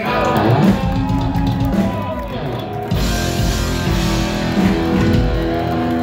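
Heavy metal band playing live in a small club, heard from within the crowd: distorted electric guitar with drums. The full band, with a heavier low end, comes in about three seconds in.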